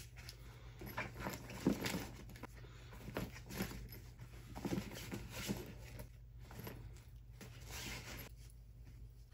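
Rustling and soft irregular knocks of training gear being handled and packed into a fabric gym bag, over a steady low hum.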